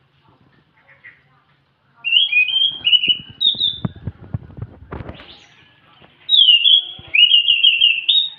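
Caged scaly thrush (anis macan) singing loud, clear whistled phrases. A first burst starts about two seconds in, and after a short pause a second burst ends in a fast run of repeated notes. Short knocks and rustles sound under the first burst.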